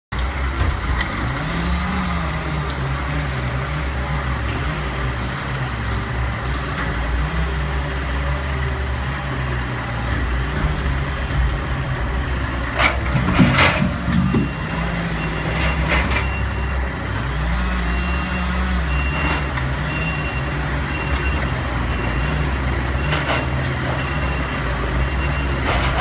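Log truck's diesel engine running under a knuckle-boom grapple loader, its pitch rising and falling again and again as the hydraulic crane lifts and swings logs. A few sharp knocks come about halfway through, and an intermittent high beep repeats through the second half.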